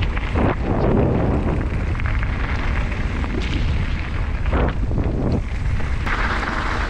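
Rumble of wind buffeting an action camera's microphone and an e-mountain bike rattling over a steep, rough trail on a descent, with a few sharper knocks from the bumps.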